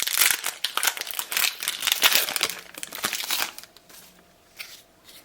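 Trading card booster pack wrapper being torn open and crinkled: a dense rustling that stops after about three and a half seconds, with one brief faint rustle near the end.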